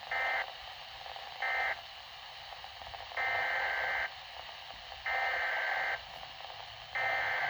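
Broadcast emergency-alert attention beeps announcing a severe thunderstorm watch: two short electronic tones, then three longer ones of about a second each, with a faint hiss between them.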